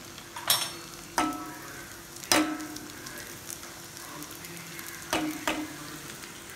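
Semolina (rava) dough pieces deep-frying in hot oil in a kadai, a steady sizzle throughout. Five sharp clicks cut through it, a few ringing briefly.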